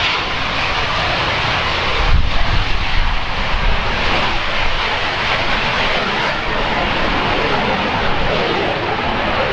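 Canadair CT-114 Tutor's single J85 turbojet at takeoff power during the takeoff roll: a steady, loud jet roar with a strong hiss, and a brief low rumble about two seconds in.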